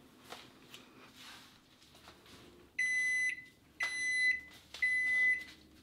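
Kitchen timer on an over-the-range microwave beeping: about three seconds in, three evenly spaced high beeps start, each about half a second long and a second apart. The beeps signal that the cooking time is up. Before them there are only a few faint clicks.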